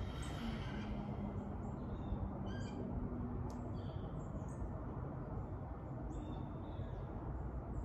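Birds calling in short, scattered high chirps from about two seconds in, over a steady low outdoor background noise, with a faint low hum during the first few seconds.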